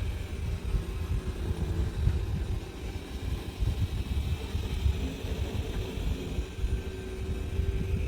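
Xiaomi Mijia 1C robot vacuum running, a steady motor hum over an uneven low rumble.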